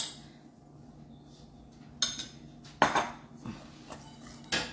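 Metal spoon clinking against a stainless steel mixing bowl while stirring a flour mixture: four sharp, short clinks spread over a few seconds.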